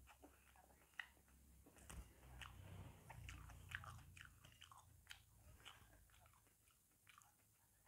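Faint, scattered wet clicks of someone eating ripe jackfruit: chewing the soft flesh and fingers tearing the sticky pods apart.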